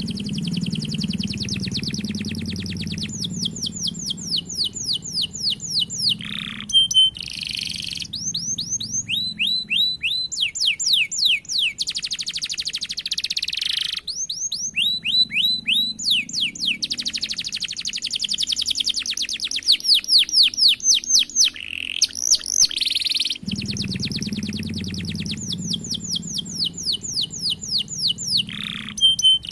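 Domestic canary singing continuously in long rolls: fast trains of rapidly repeated high falling notes, phrase after phrase, with brief breaks between them.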